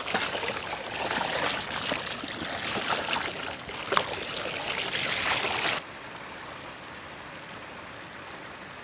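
Water poured from a pot over a tray of whole raw chickens, splashing as hands scrub and rinse them. About six seconds in it drops suddenly to a quieter, steady run of water.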